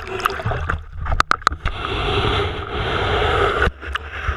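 Shallow water splashing and sloshing right at a camera sitting at the waterline. There are a few sharp knocks about a second in, then a steady rushing wash of water that cuts off suddenly near the end.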